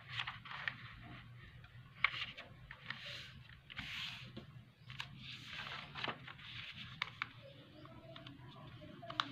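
A sheet of paper being handled and folded by hand: repeated rustling and sliding swishes as it is smoothed and creased, with a few sharp clicks, over a low steady hum.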